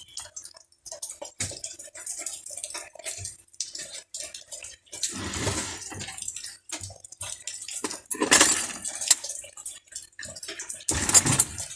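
Hand tools and small steel starter-motor parts handled on a workbench: light metallic clicks and clinks, with three louder scrapes of about a second each, around the middle, two-thirds in and near the end.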